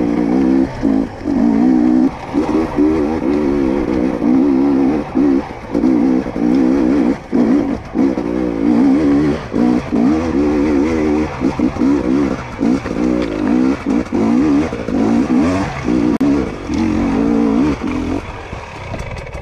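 2022 GASGAS EC250 two-stroke dirt bike engine worked hard on and off the throttle, its note rising and falling with many short cuts between bursts of revs. Near the end it drops to a lower, quieter running.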